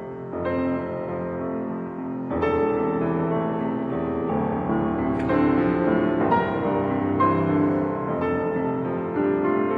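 Yamaha grand piano played solo: chords struck one after another and left to ring, with a louder chord coming in about two seconds in.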